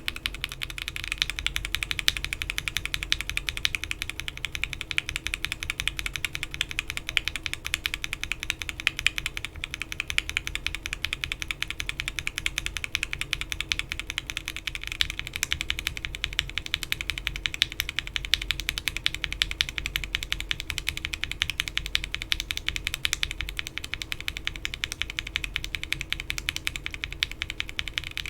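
Continuous fast typing on a mechanical keyboard with linear Alpaca switches frankenswitched with Gateron Ink and then Gateron Milky top housings, with PBT keycaps on an FR4 plate in a foam-filled case: a dense, even stream of keystroke clacks.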